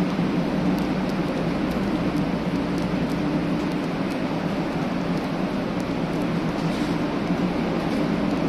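Steady whirring hum and rushing hiss from a stopped 500 series Shinkansen's onboard equipment, heard close alongside the car.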